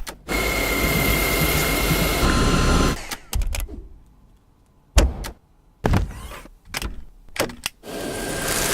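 Vacuum cleaner motor running with a steady high whine that cuts off after about three seconds, followed by a handful of sharp clicks and knocks, then the motor starting up again near the end.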